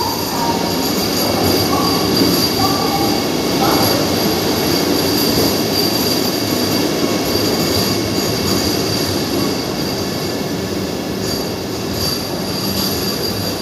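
Vande Bharat Express electric multiple unit coaches rolling past the platform as the train comes in, wheels running on the rails with a steady high-pitched squeal. The sound eases slightly in the second half.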